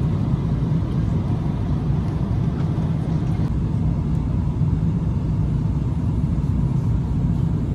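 Steady low rumble of a Boeing 777's jet engines and airflow, heard from inside the passenger cabin, with a faint steady whine above it.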